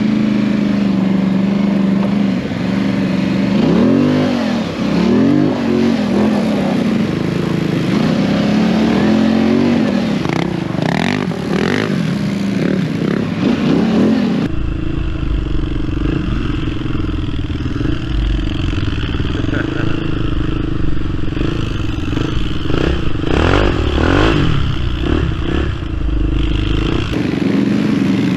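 Polaris Sportsman XP 1000 ATV's twin-cylinder engine running under way, its revs rising and falling again and again as the throttle is worked over uneven ground. About halfway through the sound changes suddenly to a deeper, heavier rumble under a steadier engine note.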